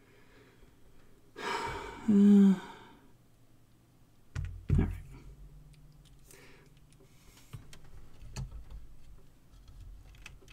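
A person sighs heavily about two seconds in, a breathy exhale that ends in a short voiced hum. Then come two dull knocks and scattered small clicks as parts inside an open cassette deck are handled.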